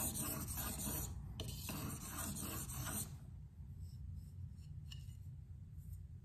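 A steel knife blade being stroked back and forth across a whetstone in a quick, even rhythm of scraping strokes. The strokes pause briefly about a second in and stop about three seconds in, leaving only a low hum and a couple of faint ticks.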